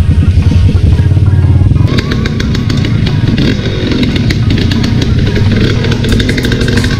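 Enduro motorcycle engine running under background music. About two seconds in the sound changes, with rapid clicking and clatter over the engine.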